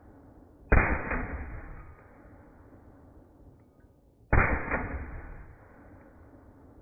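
Two 9mm pistol shots from a Glock 19 without a compensator, about three and a half seconds apart, each dying away over about a second.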